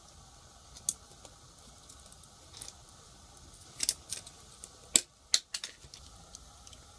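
Irregular sharp clicks and taps of small plastic keyboard parts, about eight in a few seconds, the loudest pair around four and five seconds in.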